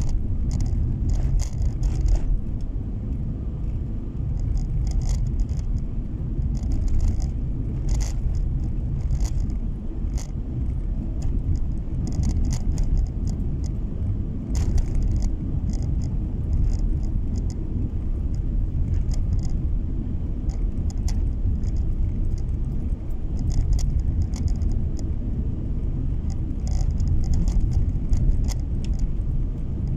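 Steady low rumble of a car driving on a snow-packed road, tyre and engine noise heard inside the cabin, with many small rattling clicks scattered throughout.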